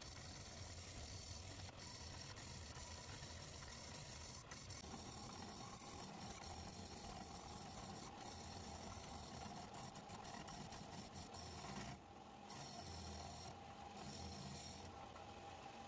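Combination belt and disc sander running faintly, with a block of pallet wood pressed against the sanding disc and scraping as its corners are sanded round.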